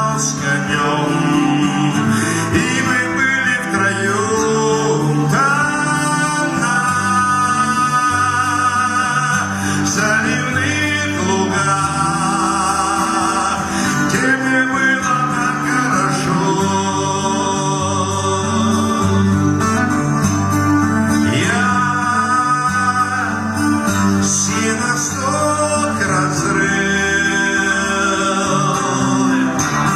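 A song: a male voice singing phrases with vibrato over guitar-led accompaniment with a steady bass line.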